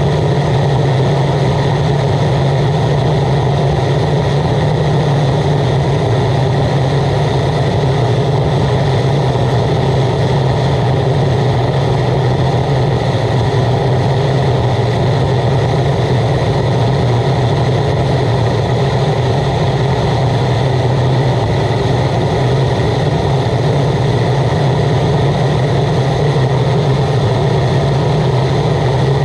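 Waste oil burner firing under a pan of boiling water: a loud, steady low drone with a hiss above it that does not change.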